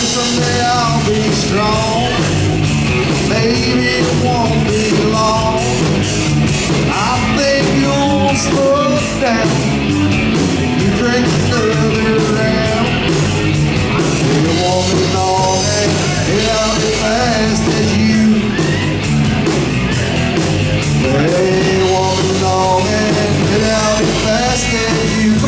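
Live rock band playing loudly: electric guitar, electric bass and a drum kit.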